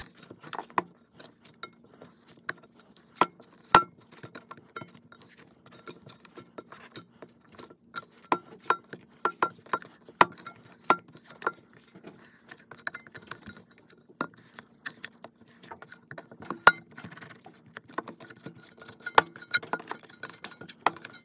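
Dough being kneaded by hand in a stainless steel mixing bowl: irregular light knocks and clinks of the hand pressing the dough against the metal bowl, over a faint steady hum.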